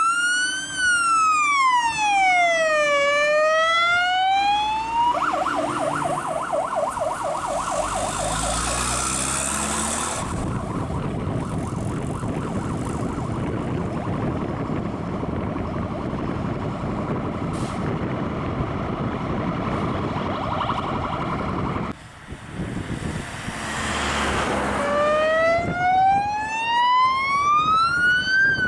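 Fire engine sirens: a slow rising-and-falling wail switches about five seconds in to a rapid warble, heard over the noise of the trucks' engines as they pull away. Near the end the slow wail comes back.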